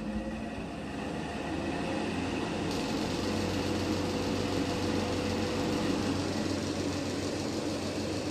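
Homemade box fan running at speed: a steady whir of rushing air over a low hum. It grows louder over the first couple of seconds, then holds steady with a little bearing noise.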